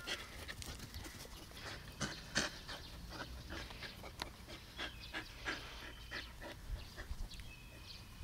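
A dog panting in quick short breaths, with a few faint bird chirps.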